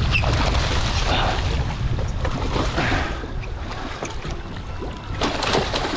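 A small tarpon thrashing at the surface beside a boat, splashing in a few bursts, the strongest near the end, over wind rumbling on the microphone.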